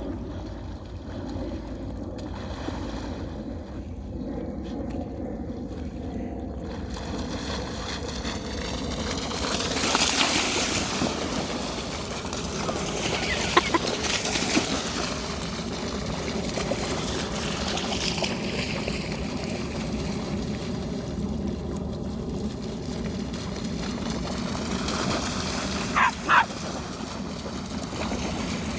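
River water splashing and sloshing over a steady running background, with louder splashes about a third and halfway through. Near the end come two short, high-pitched sounds in quick succession.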